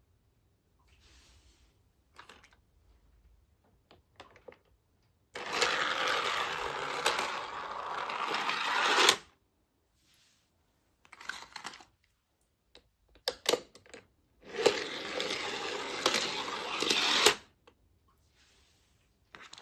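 Die-cast toy cars rolling and rattling down a plastic spiral ramp track, in two runs of a few seconds each. Light clicks and knocks come between the runs.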